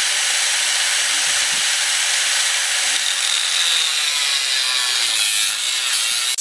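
Power tool cutting through the rusted steel frame cross member of an older Weber Genesis gas grill: a steady, loud, high-pitched noise, with a thin whine coming in about three seconds in.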